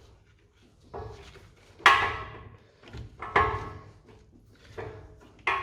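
Metal clunks as a 2020 Volvo XC40's new axle shaft is worked into the wheel hub: about five sudden knocks roughly a second apart, each ringing briefly, the loudest about two seconds in.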